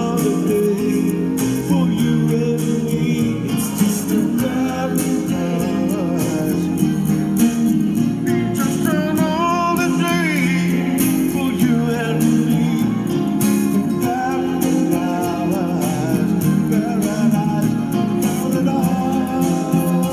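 A man singing while playing an acoustic guitar, his voice amplified through a microphone, with steady rhythmic strumming and the melody rising most clearly in the middle.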